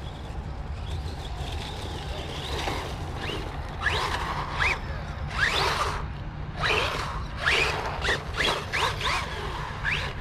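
Small electric RC car's motor whining in short bursts that rise in pitch as the throttle is punched again and again, starting about four seconds in, over a steady low rumble.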